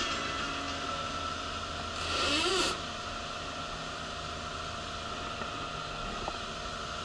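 Steady background hum and hiss, broken about two seconds in by a brief louder hissing rush with a short tone that rises and falls.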